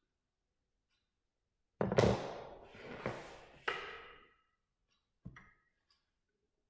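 Clatter of drawing instruments being put down and positioned on a drawing board: a compass set aside and a plastic set square laid against the straight edge. A run of knocks with a brief ring about two seconds in, then one lighter knock near the end.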